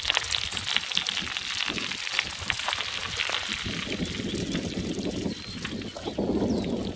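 Bicycle and single-wheel trailer tyres crunching and crackling over loose gravel as the rider pulls away, the crackle thickest in the first few seconds. A low rushing noise comes and goes in the second half.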